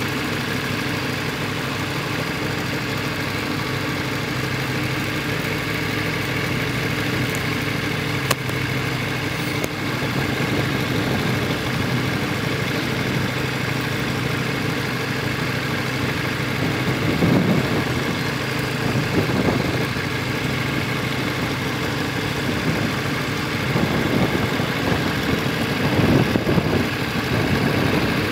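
Motorcycle engine running steadily at idle while the bike is ridden slowly, with a few brief swells in the engine sound past the middle and again near the end.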